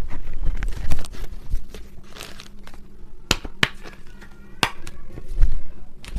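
Plastic packaging crinkling and being torn open by hand, with a few sharp snaps partway through.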